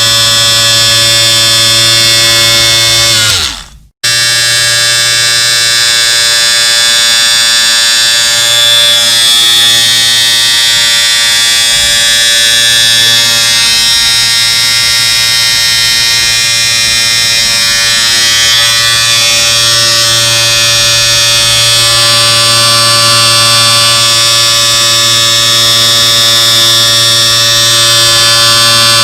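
Electric shaver buzzing steadily. About three and a half seconds in it is switched off, its pitch sinking as the motor winds down. It comes straight back on and buzzes steadily again.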